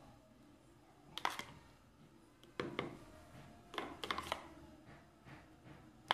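Spoon clicking and scraping against the bowl and dish in a few short clusters as thick creamy dressing is spooned onto a salad.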